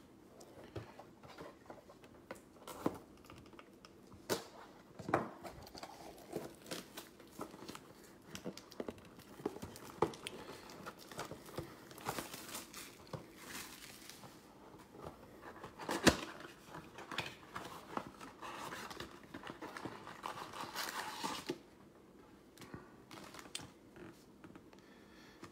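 A Contenders football card box being opened and its packs taken out by hand: cardboard flaps handled, wrapping torn and foil packs crinkling, with scattered taps throughout and one sharp knock about two-thirds of the way through.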